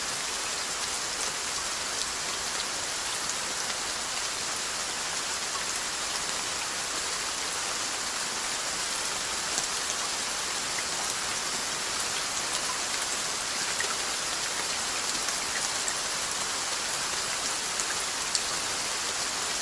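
Steady rain falling, a constant hiss with scattered small drop ticks.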